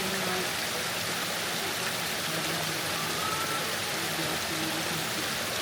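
Waterfall: a steady, even rush of falling water, with faint voices underneath.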